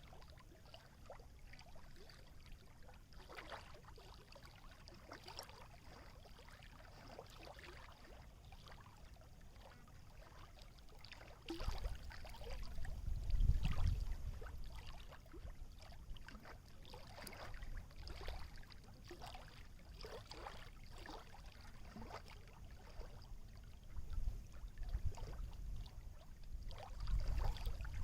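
Small waves lapping and splashing in irregular strokes. A low rumble swells about twelve seconds in and again near the end.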